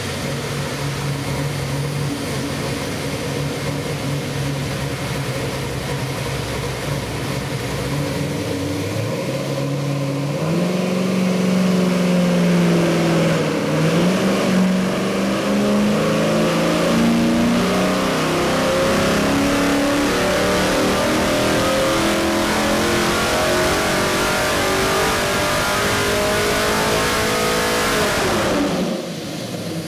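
363 cubic-inch small-block Ford stroker V8 with MSD Atomic EFI running on an engine dynamometer. It runs steadily at first, then is loaded at wide-open throttle around 2,300 rpm about ten seconds in, and pulls up in a steadily rising pitch to about 6,500 rpm. The note drops off sharply as the pull ends just before the end.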